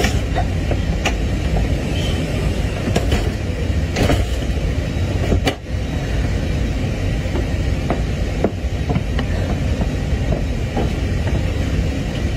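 Steady airliner cabin rumble, with a few clicks and knocks scattered through it.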